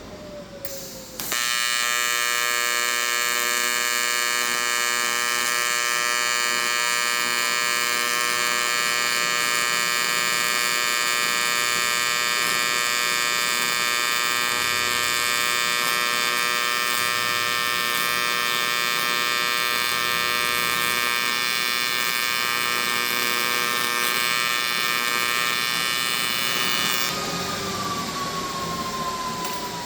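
Electric grinder switched on about a second in and running at a steady whine, grinding down the welds on an aluminum frame; near the end it is switched off and winds down with a falling whine.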